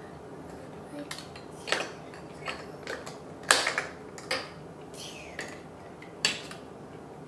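Plastic Duplo bricks clacking and knocking on a wooden tabletop as a toddler handles them, pushing a long brick along the table and fitting pieces onto a toy truck. About eight separate sharp knocks, the loudest about three and a half seconds in.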